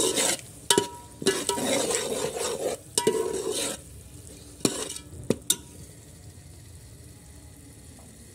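A metal spoon stirring and scraping thick spice masala frying in oil in a metal pot, with clinks of the spoon against the pot. A few sharp clinks come about halfway through, after which only a faint steady sizzle of the masala remains.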